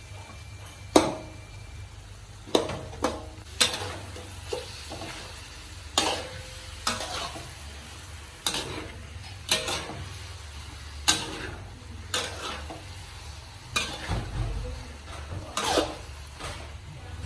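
Metal spatula scraping and clanking against a steel wok while stir-frying eggplant and minced pork, in irregular strokes about once a second.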